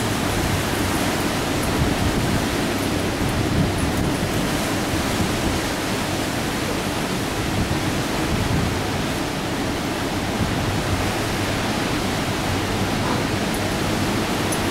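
Hurricane-force wind and heavy surf making a steady, dense rush of noise that stays even throughout.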